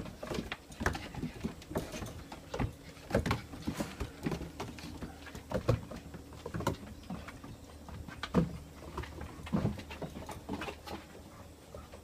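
Paws and claws of black German Shepherd puppies and an adult dog pattering and scrabbling on wooden deck boards as they play: irregular taps and thuds.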